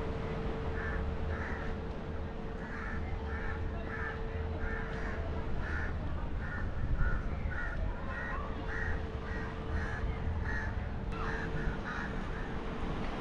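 Crows cawing over and over in quick short calls, over a steady low rumble.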